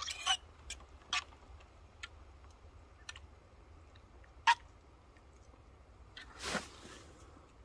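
A spoon stirring thick chili in a metal mess tin: scattered light clicks and scrapes, one sharper clink about four and a half seconds in, and a short scrape near the end.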